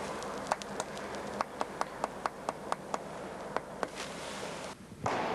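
A quick run of sharp clicks or taps, about three to four a second, over a steady hiss, cut off abruptly near the end.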